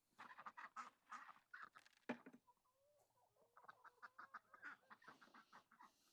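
Faint poultry calling: a rapid run of short calls in quick succession.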